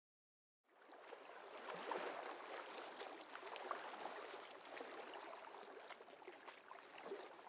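Harbour water lapping and splashing around a small rowing boat as it moves across the water, with many small irregular splashes. It fades in about a second in.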